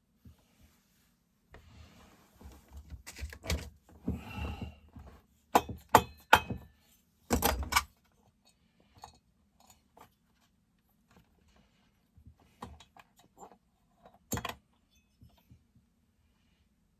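Metal clinks, clicks and knocks of chainsaw engine parts and hand tools being handled while the cylinder is worked off the crankcase. There is a busy run of clatter between about three and eight seconds in and a single sharp clank near the end.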